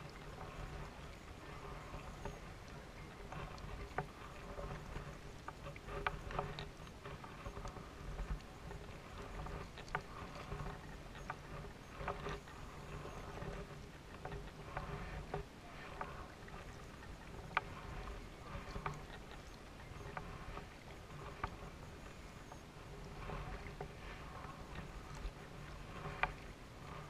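Kayak paddling on calm water: paddle blades dip and splash in an irregular rhythm, with scattered sharp knocks.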